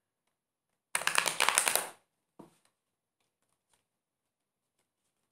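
A deck of Robin Wood tarot cards being shuffled: one quick burst of rapid card flicking lasting about a second, followed by a single short tap of the cards.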